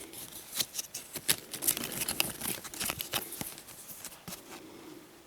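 Packaging being handled close up: a quick run of crinkling, rustling and small clicks, busiest in the first three seconds and dying away near the end.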